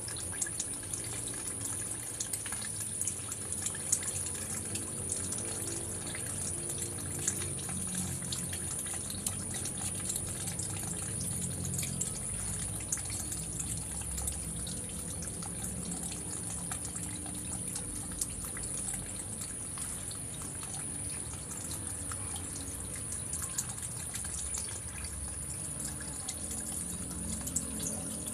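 Steady running water, like a tap left running, with a thin high steady tone throughout.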